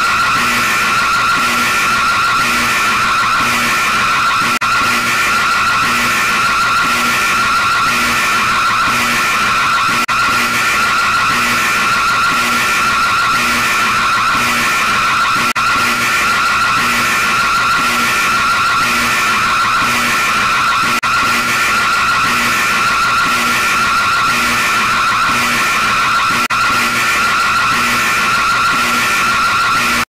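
A loud, harsh, distorted electronic alarm tone, a mock Emergency Alert System alarm, held steady and unbroken with a faint regular pulsing underneath.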